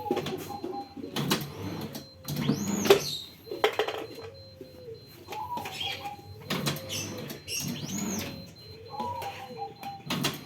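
Semi-automatic cup screen-printing machine running through its cycles: repeated mechanical clacks with short squeaks and whines every second or two.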